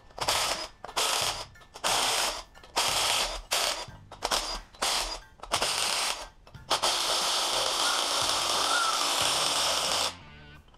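Cordless impact driver running in about eight short bursts, then one longer run of about three seconds: bolts being spun out of the front of the engine.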